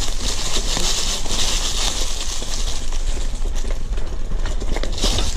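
Bicycle tyres rolling over a trail carpeted with dry fallen leaves: a continuous crackling crunch of leaves over a steady low rumble.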